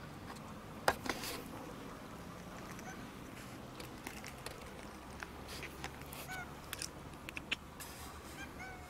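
Outdoor ambience with two sharp clicks about a second in, then scattered lighter clicks and a few faint, short, high animal calls in the second half.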